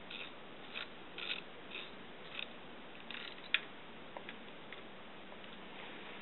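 Socket wrench clicking in short bursts, about two a second, as the gear case fill plug is tightened, with one sharp click about halfway through and a few faint ticks after.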